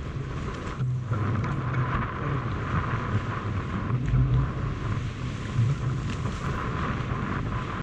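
Steady wind noise buffeting the microphone, with choppy water lapping against a small boat's hull.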